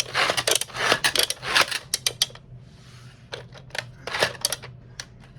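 Toy monster trucks clattering on a plastic Hot Wheels Monster Jam garage playset: rapid clicks and knocks as they are loaded and sent down the ramp. A brief even rush of noise comes about halfway through.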